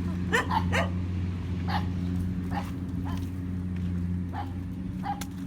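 A dog barking and yelping in short, scattered calls, several times, over a steady low engine hum.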